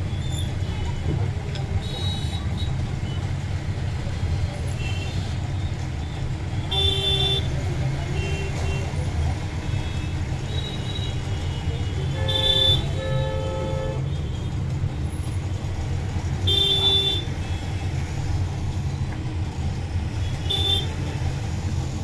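Steady low rumble of road traffic, with a run of short vehicle horn toots every few seconds, two of them in quick succession near the middle.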